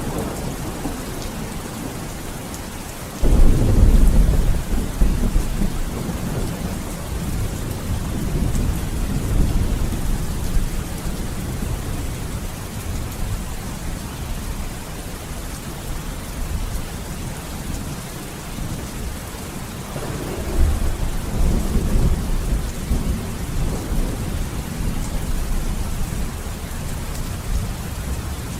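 Steady heavy rain with thunder: a sudden loud rumble breaks in about three seconds in and rolls away over a few seconds, and a second, lighter rumble comes about twenty seconds in.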